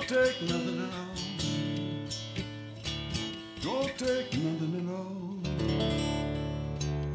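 Acoustic guitar being strummed and picked, with notes sliding up in pitch twice, then a chord left ringing near the end.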